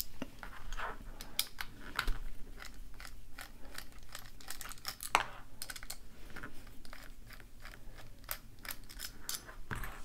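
Small irregular clicks and ticks of hand disassembly: a precision screwdriver backing small screws out of a combination deadbolt's plastic rear housing, with the lock body clicking as it is handled. There are several clicks a second, unevenly spaced.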